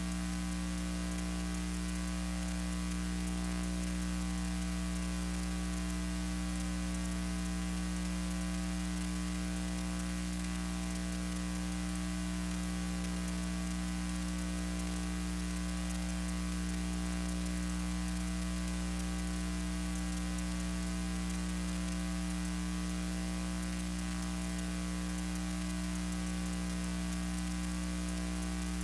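Steady electrical mains hum with a constant hiss underneath, unchanging throughout.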